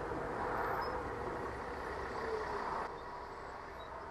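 Steady vehicle and road-traffic noise, with a faint whine that falls briefly about two seconds in; about three seconds in the sound drops abruptly to a quieter, duller rumble.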